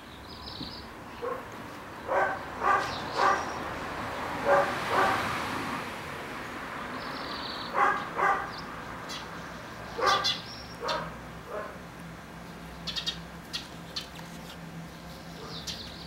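Short, repeated animal calls, about ten of them, several in quick pairs, with a few faint high chirps between them.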